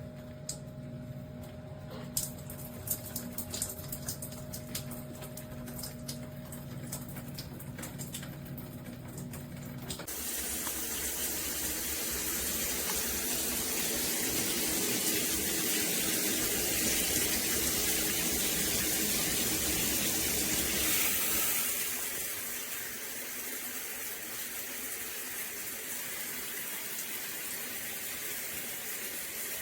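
A steady low hum with a few clicks, then about a third of the way in water starts spraying from the AQUALONA Aquacapri shower column, a steady hiss that eases somewhat in level about two-thirds through.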